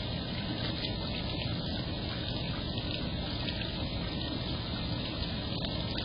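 Steady rushing sound of running water at a backyard pond, with a few faint ticks.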